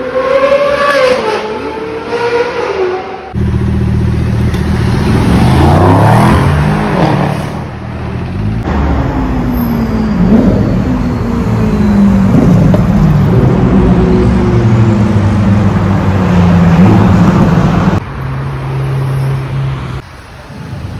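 Supercar engines in short cut-together clips. First a Ferrari 458 Italia's V8 revs up and falls back as it drives past. From about three seconds in, a Lamborghini Aventador's V12 revs hard for a long stretch, its pitch rising and falling. Near the end a Ferrari 488 Pista's V8 runs at a steadier, lower note.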